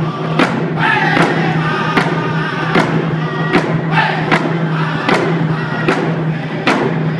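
Group of singers performing a round dance song in unison over a steady beat of hand drums, one stroke about every three-quarters of a second.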